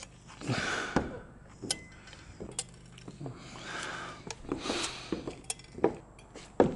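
Scattered clicks and knocks from a hand-held caulking gun being worked and handled as construction adhesive is run along wooden floor joists, with a few short stretches of soft hiss.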